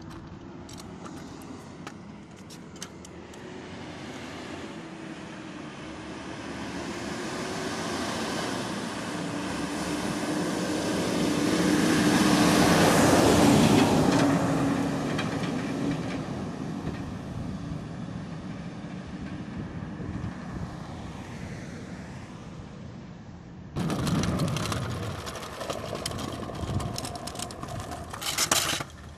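A heavy dump truck passing close by: its diesel engine and tyres build to a peak about halfway through and then fade away. Near the end the sound changes suddenly to rougher traffic noise with crackles.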